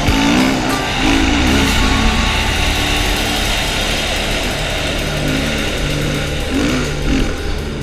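KTM 500 EXC dirt bike's single-cylinder four-stroke engine revving up and down under load as it climbs a sand hill, with music playing underneath.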